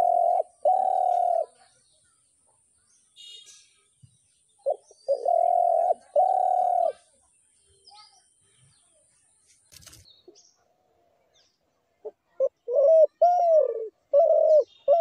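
A dove cooing in three phrases of low coos: one at the start, one about five seconds in, each a short note followed by two drawn-out ones, and a quicker run of shorter coos near the end. Faint chirps of small birds between the phrases.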